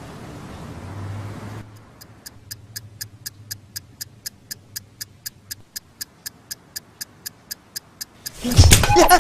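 Alarm clock ticking steadily, about four ticks a second, after a faint hiss at the start; near the end a sudden loud clattering burst breaks in.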